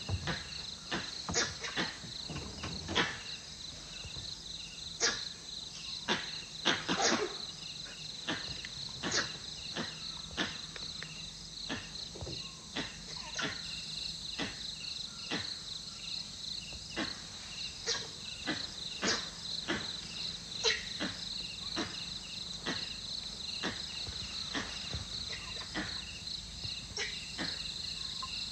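Steady high-pitched insect chirring in forest, with many short sharp clicks and snaps scattered throughout.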